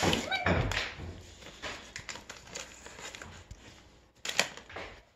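Foil gift wrapping rustling and a puppy's light taps on a tile floor as the dog noses the present, with a sharper crackle about four seconds in.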